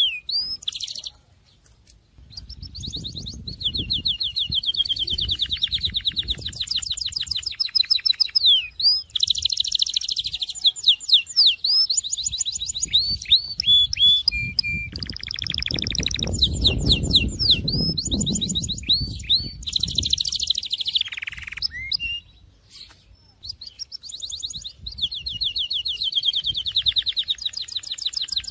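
A Syrian-style song canary singing a long run of rapid trills and rolling repeated phrases, with a few short gliding notes. The song breaks off briefly twice. A low rumble sits under the song, strongest about two-thirds of the way through.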